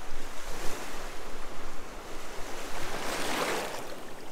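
Gulf surf washing in around the shins in shallow water, with a wave surging in louder about three seconds in.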